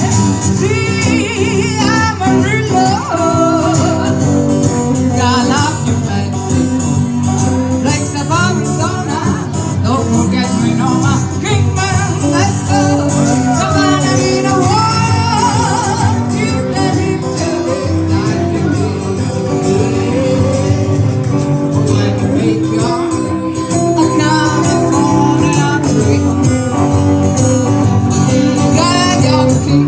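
Live band music: a singer with instrumental accompaniment, playing on without a break.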